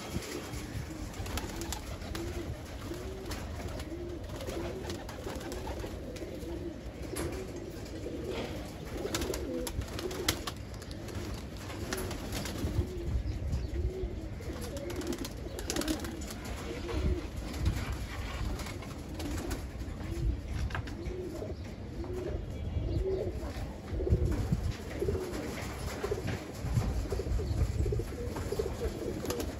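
Domestic pigeons cooing: a steady run of short rising-and-falling coos, a little under two a second, over a low rumble.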